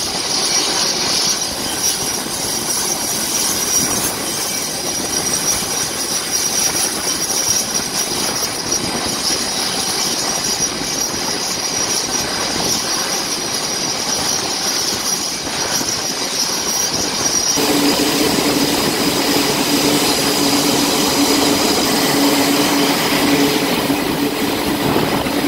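Jet aircraft engines running on a carrier flight deck: a loud, steady rushing noise with a high whine. About 17 seconds in the sound changes abruptly; the whine drops away and a lower steady hum takes over.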